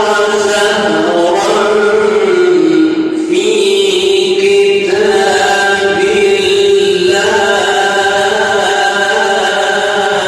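A man reciting the Quran in the drawn-out melodic tajweed style, holding one long ornamented phrase whose pitch turns slowly up and down. The voice stops at the very end, with a short echoing fade.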